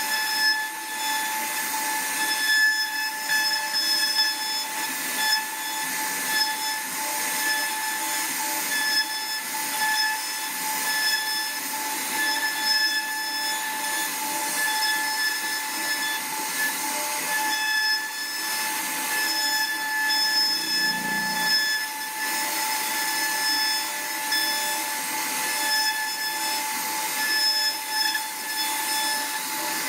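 CNC router spindle running steadily while carving wood, a constant high-pitched whine over the hiss of the cutter in the wood.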